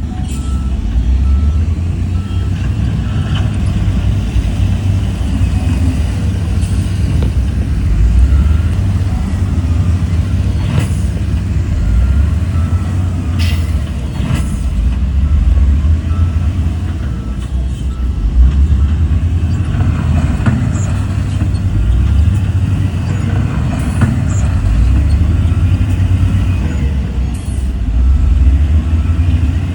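Heavy diesel earthmoving machinery running steadily with a deep rumble, with a few sharp knocks scattered through it.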